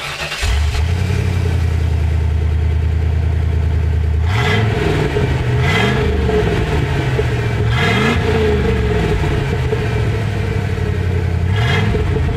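1980s Ford Bronco's engine exhaust through a MagnaFlow xMOD muffler fitted with the xTreme Bypass module, giving a motorsport straight-pipe type of sound. The engine starts just after the beginning, idles, and is revved four times in short blips.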